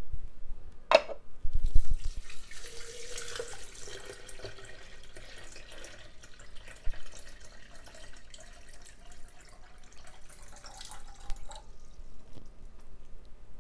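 A click and a couple of knocks, then tap water poured from a glass measuring cup into a plastic container, splashing steadily for about nine seconds, with the pitch of the filling rising as the container fills before the pour stops.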